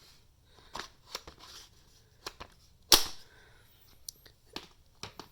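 Cordless impact wrench being handled: a series of light clicks and knocks, with one sharp, loud clack about three seconds in. The wrench's motor does not run.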